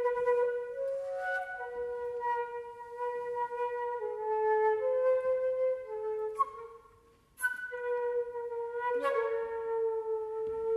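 Solo flute playing slow held notes that step between nearby pitches, several starting with sharp attacks. The sound breaks off to near silence a little past halfway, then resumes with a sharp attack.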